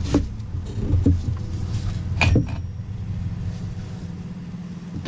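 A few short knocks and clinks of metal parts being handled as a motorcycle's rear wheel is pulled back to tighten the chain, the strongest about two seconds in, over a steady low hum.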